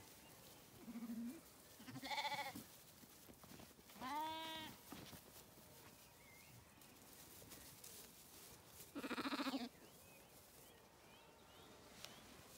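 Zwartbles lambs bleating: a faint short call about a second in, then three loud bleats at about two, four and nine seconds, the last one quavering.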